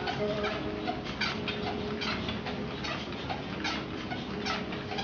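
Motorised treadmill running with a steady hum while an English bull terrier walks on the belt, its paws striking the deck in a regular patter of about three steps a second.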